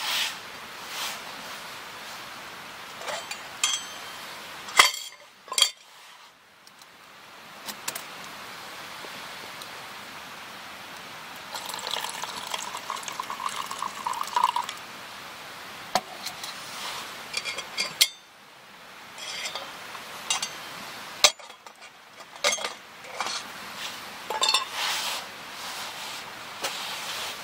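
A metal mug and other camp cookware being handled, with scattered clinks and knocks. Liquid is poured into the mug for a couple of seconds near the middle, the pitch rising slightly as it fills.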